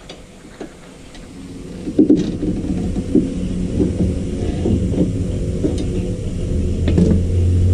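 Irregular metallic knocks and clunks starting about two seconds in, as a screwdriver is levered against a Perodua Viva's front lower ball joint and the bare hub is rocked by hand, over a steady low hum.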